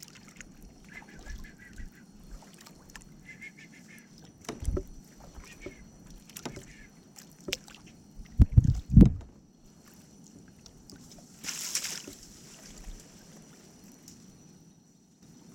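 Canoe paddling: the paddle knocks against the canoe's hull now and then, loudest as three low thumps about eight and a half to nine seconds in. A short splash of water comes a few seconds later.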